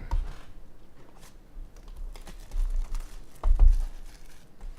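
A box and foil card packs being handled on a table: a short crinkle of wrapper at the start, scattered light clicks, and a few dull thumps as they are set down.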